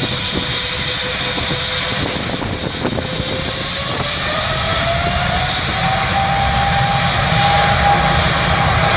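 Boeing 777's twin jet engines at takeoff power during the takeoff roll: a steady jet rush, slowly growing louder, with a fan whine that climbs in pitch from about three seconds in and then holds high.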